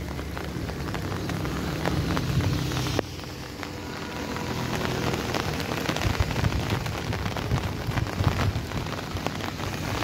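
Heavy rain falling, with dense drops striking an umbrella held overhead, over a low steady rumble of wind. The level drops suddenly about three seconds in, then builds back up.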